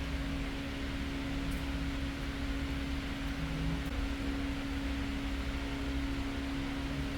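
Steady machine hum: one constant tone under an even hiss, with no change.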